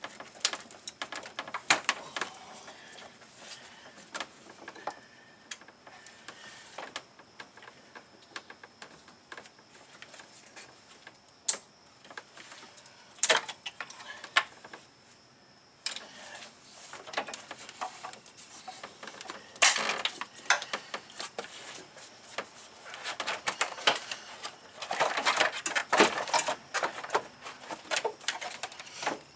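Irregular clicks, knocks and rattles of hard parts being handled as the cooling fan assembly of a 2005 Mazda Tribute is worked loose in the engine bay. The clatter comes in denser spells a little under halfway through and again near the end.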